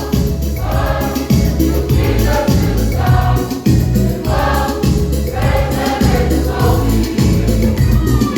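A choir of young voices singing a Christmas song in phrases over a steady accompaniment with a strong bass beat.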